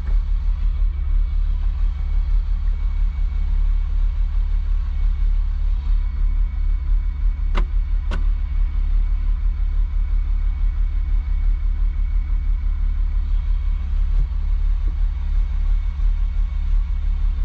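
Truck engine idling steadily, heard from inside the cab, with two sharp clicks about half a second apart midway through.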